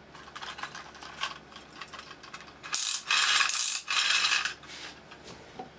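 3D-printed plastic wind-up robot's ratchet clicking rapidly as it is wound. From about three seconds in come three louder rasping bursts, then fainter clicking.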